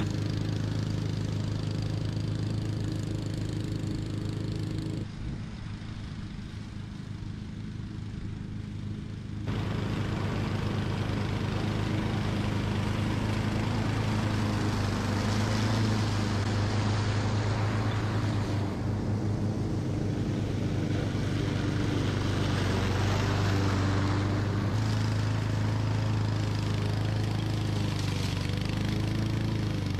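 Honda walk-behind gas lawn mower engine running steadily while cutting tall grass. About five seconds in, the sound turns duller and quieter for about four seconds, then comes back full.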